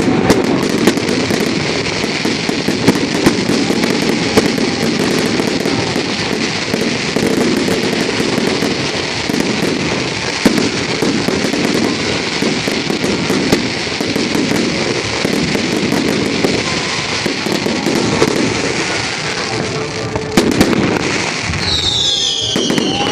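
Fireworks display: a continuous dense crackling and popping of many shells bursting, with scattered louder bangs.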